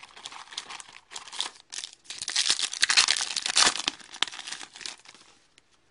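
Plastic trading-card pack wrapper crinkling and being torn open, the crackle loudest in the middle and dying away near the end.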